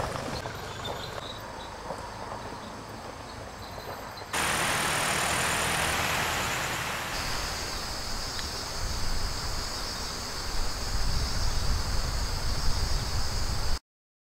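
Outdoor woodland ambience: steady insect chirring over a low rumble, changing abruptly twice as the shots change, then cutting off suddenly near the end.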